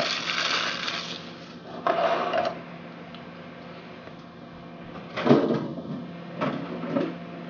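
Plastic saltine cracker sleeve crinkling as the last crumbs are shaken out over a mixing bowl, then a few short knocks and clunks over a steady low hum.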